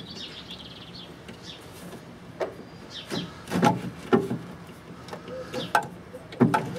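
A large 68-pin wiring plug being worked onto an ECU's socket: a string of short clicks and knocks as it is pushed and wiggled to line up its notches, starting about two and a half seconds in.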